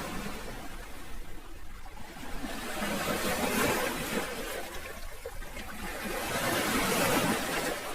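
Sea waves washing in and drawing back, the surf swelling twice, about four seconds apart.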